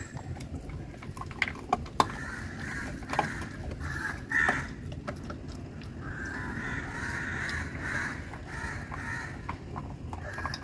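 Labrador puppy gnawing a dental chew stick on a tiled floor, with scattered sharp clicks of teeth on the stick. Behind it, repeated harsh cawing calls, one long stretch of them about six seconds in.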